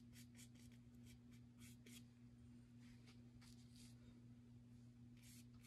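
Faint paintbrush strokes as paint is brushed thinly over a styrofoam printing plate, short scratchy strokes in small clusters, over a steady low hum.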